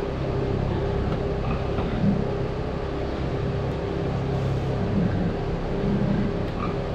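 Electric kerosene pump running, its small motor humming steadily as it sucks rainwater out of a flooded pig-barn manure pit.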